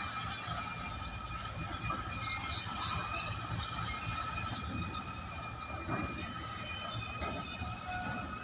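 Goods-train wagons rolling slowly during shunting, their wheels squealing against the rails in several steady high-pitched tones over a low rumble.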